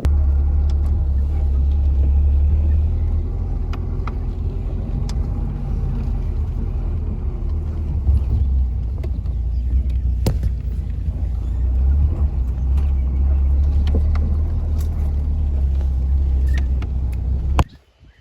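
A motor vehicle driving: a loud, steady low rumble of engine and road noise, with scattered light knocks and rattles. It cuts off suddenly near the end.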